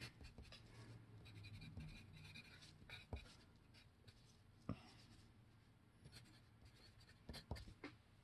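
Wooden pencil writing on paper: faint scratching strokes, with a few sharp ticks as the pencil touches down.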